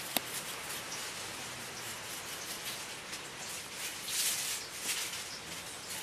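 Knife slicing pork belly on a wooden chopping board: a few light, irregular knocks of the blade against the board, the sharpest just after the start, over a steady hiss.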